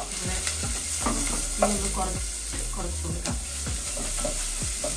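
Chopped onion sizzling in hot vegetable oil in a frying pan, stirred with repeated scraping strokes, in the first stage of sautéing.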